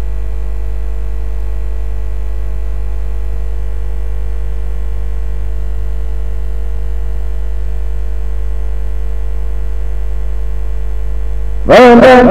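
A steady, unchanging low hum with a few faint steady tones above it: electrical hum on the recording.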